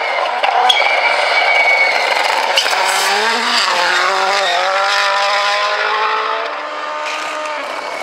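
Toyota Yaris WRC rally car's 1.6-litre turbocharged four-cylinder engine at full throttle as the car passes, its pitch climbing and dropping through quick gear changes. The sound gets quieter about six and a half seconds in.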